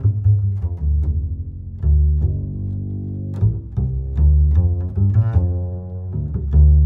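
Background music: a string-like tune of short note attacks over deep, sustained bass notes.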